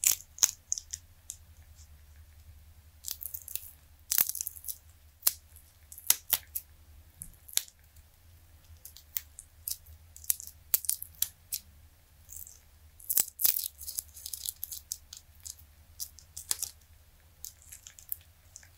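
Silicone dice molds being flexed and peeled off cured resin dice: irregular crisp crackles and clicks as the silicone lets go of the resin, with a few denser bursts of crackling.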